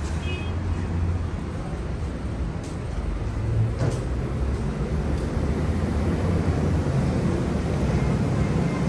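Steady low rumble of background noise, with a few faint clicks about three and four seconds in.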